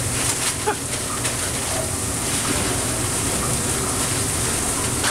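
Steady sizzling of burger patties and onions frying on a flat-top griddle, with a few faint clicks.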